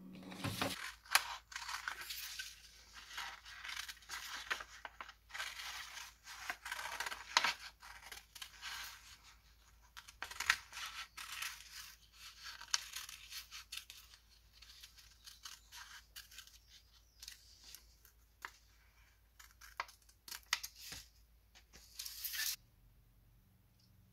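Scissors snipping through a sheet of heat transfer paper, with the paper rustling as it is turned by hand: a long run of irregular crisp snips that stops shortly before the end.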